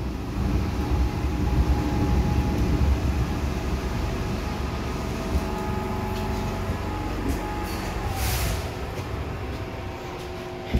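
MTR M-Train heard from inside the carriage: a low rumble with steady motor tones that fades gradually, and a short hiss of air about eight seconds in.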